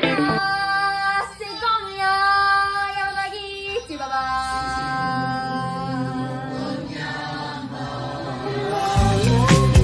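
Music with singing voices holding long sustained notes; a heavy low drumbeat comes in near the end.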